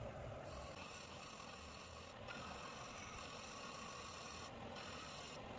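Disc sander running steadily, with a small wooden block held against the spinning sanding disc to sand it to shape.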